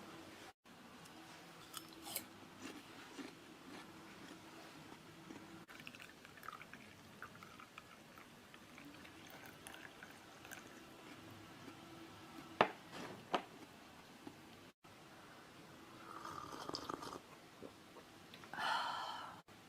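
Quiet, close chewing of food with small clicks, and two sharp clicks a little past halfway. A short pitched sound comes near the end.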